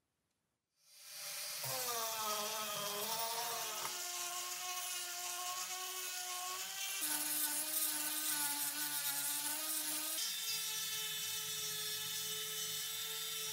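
Dremel rotary tool running a sanding drum on its flex shaft, grinding the edge of a hole in a cast-iron plate. The high whine starts about a second in and sags in pitch as the drum bites. It drops lower about seven seconds in and rises again about three seconds later as the load on the drum changes.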